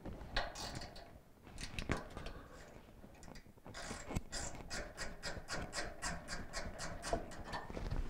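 Small ratchet with a Phillips bit clicking as it backs out the screws of the gas valve coil bracket. A few separate clicks at first, then from about halfway an even run of about four clicks a second.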